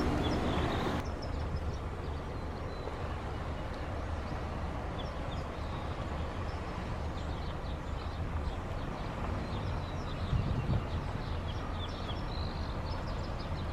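Steady low vehicle rumble, with many short high bird chirps from about four seconds in.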